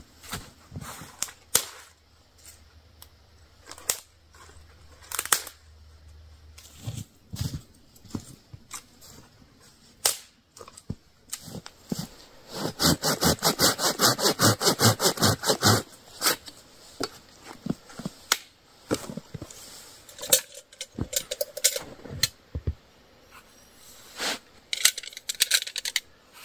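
Scattered sharp cracks, clicks and knocks of wood and camp gear being handled while a campfire is got ready. About halfway through comes a fast, even run of rasping strokes, roughly nine a second for about three seconds; it is the loudest sound here.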